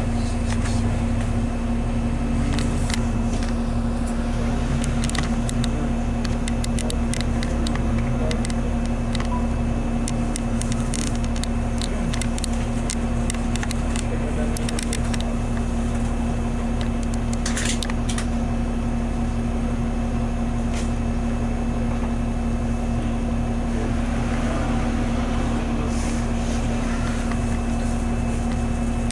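Interior of a 2001 New Flyer D40LF diesel city bus at a standstill: the engine and running gear idling with a steady hum and a constant droning tone, with occasional light clicks and rattles.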